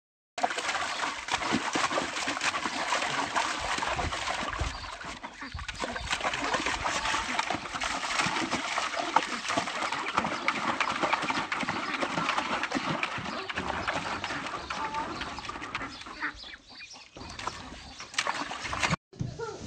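A flock of domestic ducks and geese quacking and calling, mixed with water splashing as a Jack Russell terrier paws and digs in a tub of muddy water. The sound is busy and continuous, and it cuts off shortly before the end.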